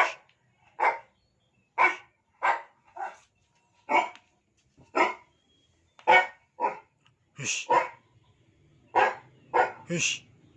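A dog barks repeatedly: about fourteen short barks, one every half second to a second.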